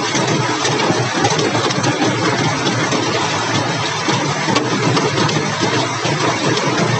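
Hail about 2 to 3 cm across pelting clay roof tiles and rooftops: a loud, steady clatter of countless small impacts, unbroken throughout.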